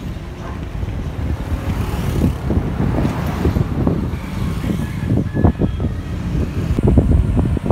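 Wind buffeting the microphone of a phone held out by a rider on a moving bicycle: a rough, gusty rumble that comes and goes irregularly and grows stronger near the end.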